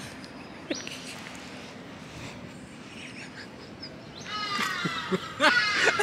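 Faint open-air background with a couple of short, high bird chirps, then about four seconds in a high-pitched wailing cry starts and grows louder.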